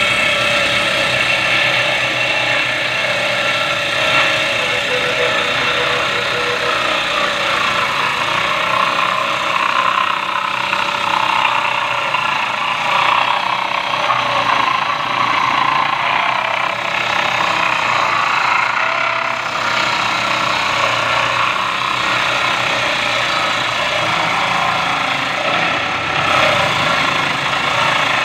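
A woodworking power tool running steadily and without pauses, a loud mechanical whir with a steady hum.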